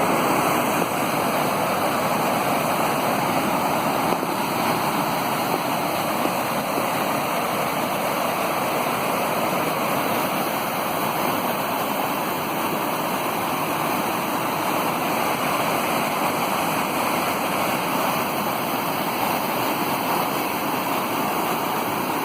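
Waterfall rushing: a steady, loud roar of falling water, even throughout.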